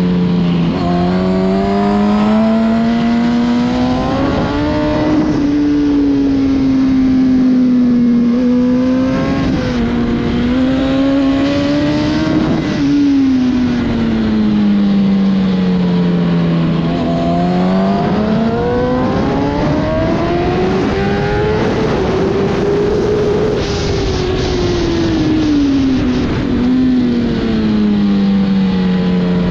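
Sport motorcycle engine at full racing pace on a track lap. Its revs climb hard on the straights and fall away as it slows for corners, several times over.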